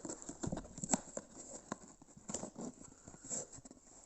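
Irregular clicks, taps and rustles of packaging being handled while a camcorder is unboxed, with a sharper click about a second in.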